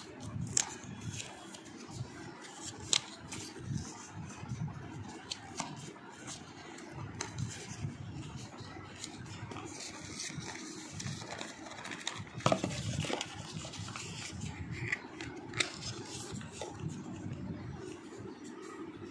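Small paperboard cartons being handled and opened by hand: card rustling and scraping, with a few sharp taps and clicks, the loudest about twelve and a half seconds in.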